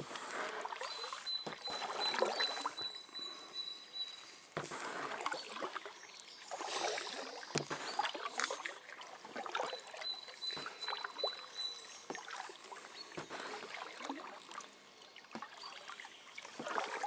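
Paddle strokes from an inflatable kayak: the blades dip and pull through river water with splashes and drips, in uneven swells every few seconds. A thin, high steady tone comes and goes.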